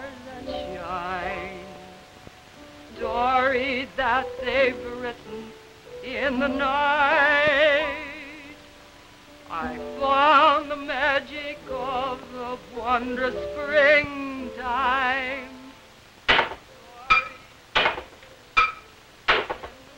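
A woman singing opera with a wide, wobbling vibrato, in long phrases with short breaks. About sixteen seconds in the singing stops and about six sharp, ringing metal bangs follow, a little faster than one a second: hammering on plumbing pipes.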